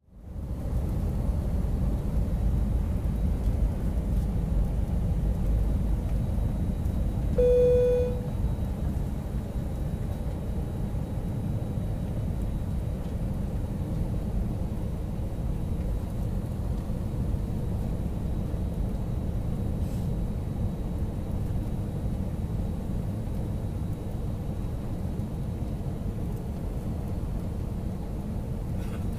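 Steady low rumble inside an Airbus A319 cabin during descent: engine and airflow noise heard from a window seat beside the wing engine. About seven and a half seconds in, a short single-pitched tone sounds once.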